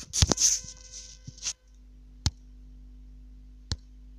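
Rustling handling noise over a buzzing hum, which cuts off abruptly about a second and a half in. A low steady hum follows, broken by a few sharp isolated clicks.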